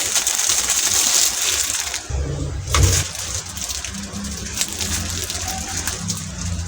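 Water running or pouring for about two seconds, then a single light clink, followed by a steady low hum.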